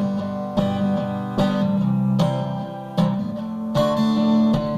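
Acoustic guitar strumming chords in a steady rhythm, a strum about every 0.8 seconds, with no singing.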